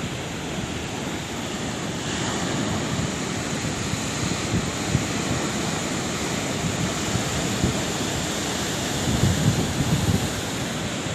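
Sea waves washing onto the shore in a steady rush of surf, with a heavier surge about nine seconds in.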